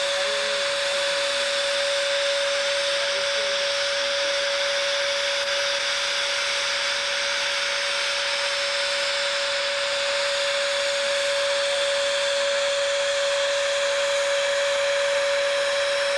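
Steady hiss of escaping steam from a narrow-gauge steam locomotive, with one steady tone running through it.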